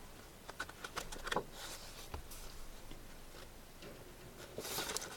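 Sketchbooks and loose paper palettes being handled and sorted: a few light taps and clicks in the first couple of seconds, then a soft paper rustle near the end.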